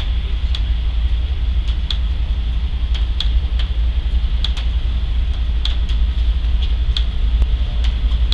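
Norfolk Southern mixed freight train rolling by slowly, with a steady low rumble and a sharp click about every second and a quarter.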